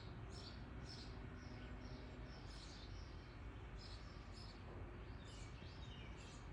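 Small birds chirping: many short, high chirps, several a second in places, over a faint steady low background noise.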